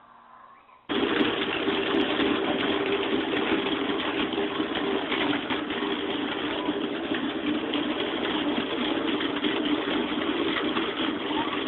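A steady mechanical drone with a steady hum in it, starting abruptly about a second in.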